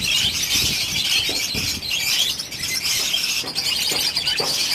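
Many caged budgerigars chattering and chirping together in a steady, dense twitter.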